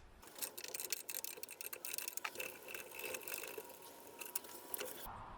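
Hand tools working a nut on a tractor's light mount: a long run of small, quick, irregular metal clicks and ticks, quiet throughout.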